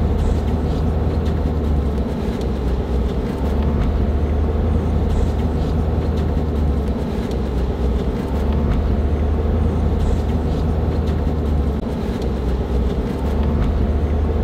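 Pickup tow vehicle's engine and road noise heard from inside the cab as it creeps slowly onto a truck-stop scale: a steady low drone that swells and eases every few seconds with the throttle.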